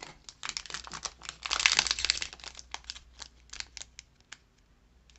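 Foil wrapper of a Pokémon Rebel Clash booster pack crinkling and crackling in the hands, thickest about a second and a half in, then thinning out and dying away near the end.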